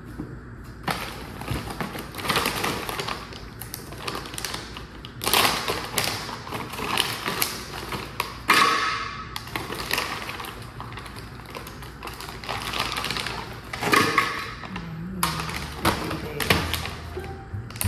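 Kitchen clatter while a fruit smoothie is being made: irregular bursts of rattling, tapping and knocking, some sharp, starting and stopping every few seconds.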